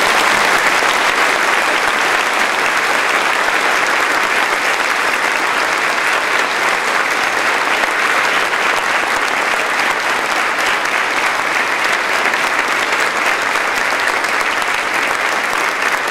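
A large audience applauding steadily: sustained clapping from many hands at an even level.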